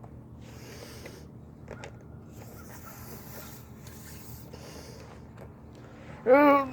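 A few soft hissing, rustling noises, then near the end a short, loud voiced cry rising slightly in pitch.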